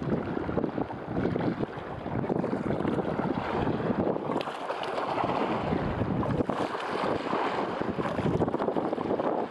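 Wind buffeting the microphone in a steady, rough rush, over sea water lapping around the angler.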